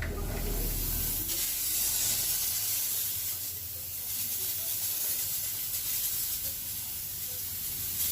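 Steady hiss with a low hum underneath, starting suddenly and holding level.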